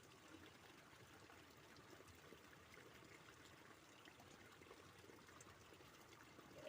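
Faint, steady rushing of a flowing stream.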